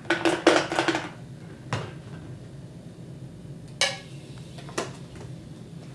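Tin can clattering and knocking as it is handled on the lab bench. A rattling burst with a short ring comes in the first second, then three single sharp clicks spread over the next few seconds.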